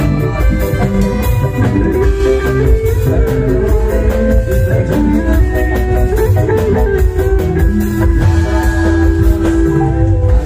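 Loud music played through a carnival sound system: heavy bass under a steady drum beat, with a melodic lead line that holds a long note near the end.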